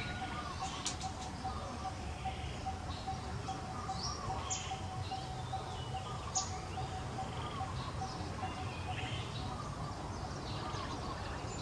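Birds calling: a quick repeated note runs steadily underneath, with scattered chirps and a few short, sharp high chirps over it.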